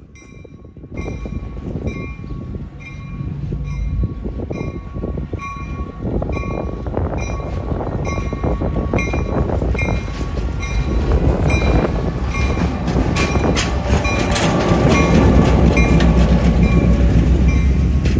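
A train approaches and passes, its rumble and wheel noise growing louder from about a second in, while a bell rings steadily about once a second.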